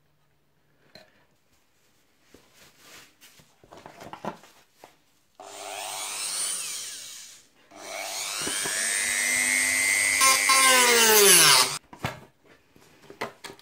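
Small rotary tool with a cut-off disc running and cutting into a thin plexiglass box, in two runs, the second longer. Its whine falls in pitch near the end of the second run, then stops abruptly. Faint handling clicks come before it.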